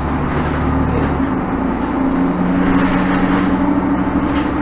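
Inside a 2017 Nova Bus LFS diesel city bus under way: engine and drivetrain running steadily with road noise, the low engine note changing about a second in.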